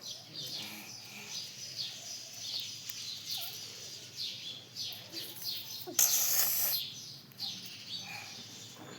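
Small pet birds chirping, a steady run of many short high calls. About six seconds in, a brief loud noisy burst lasting just under a second cuts across the chirping.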